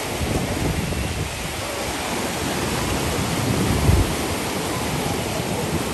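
Small waves breaking and washing up on a Lake Michigan beach, a steady surf wash, with wind buffeting the microphone in a low rumble that is strongest about four seconds in.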